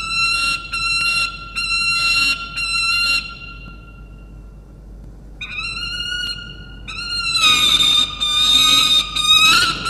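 A young male peregrine falcon loudly squawking at the adult male: a run of harsh, pitched calls about three a second, a short lull in the middle, then calls resuming and running together into a loud, drawn-out wail near the end.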